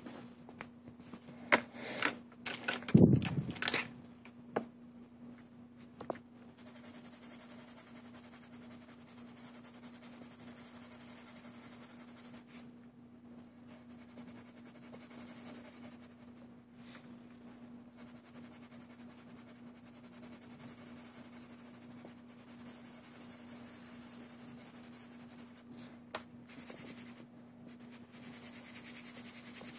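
A few sharp clicks and knocks at first, then a faint steady hum with soft scratching of a coloured pencil shading on paper. The scratching is louder near the end.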